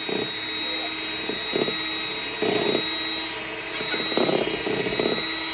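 Electric hand mixer running steadily with a constant high whine, its beaters whipping egg whites mixed with cornstarch toward stiff peaks. It swells louder for a moment a few times.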